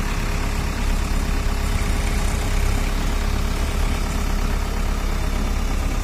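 JCB backhoe loader's diesel engine running steadily, with no change in speed.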